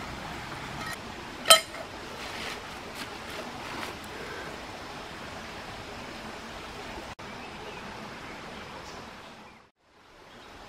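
Steady rush of a shallow rocky stream, with one sharp clink of stone against stone about a second and a half in. The sound fades out briefly near the end.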